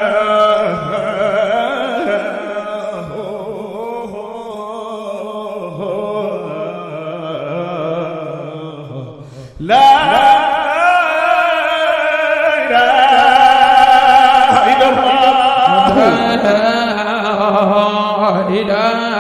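A man singing a religious chant in long, ornamented phrases with wavering held notes. The voice fades about nine seconds in, then a louder new phrase starts.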